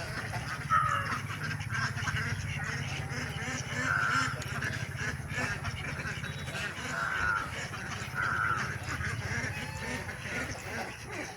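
Poultry calling: several short calls a second or more apart, over a steady low hum.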